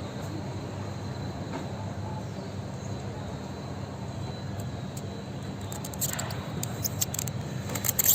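A steady low engine drone from vehicles, with a swell of noise about six seconds in and a few sharp clicks and knocks near the end, the loudest just at the close.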